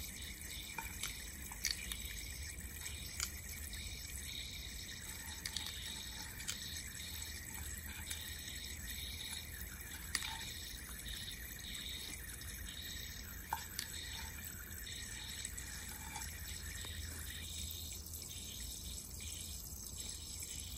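Eastern box turtles biting and snapping at dry food sticks on a plastic tray: scattered sharp little clicks and ticks, about eight of them, over a steady faint hiss.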